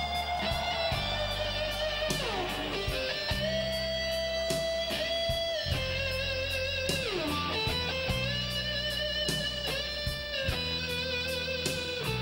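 Electric guitar (a Gibson Les Paul) playing a slow blues-ballad lead, with long sustained notes and downward slides about two and seven seconds in. Under it the band holds low bass notes, with steady drum and cymbal ticks.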